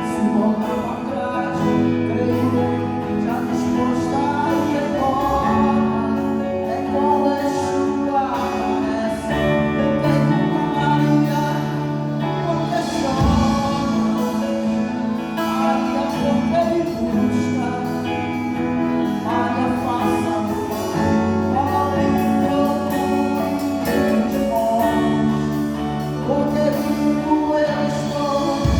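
A gospel band playing a praise song, with voices singing over the instruments and a steady bass line.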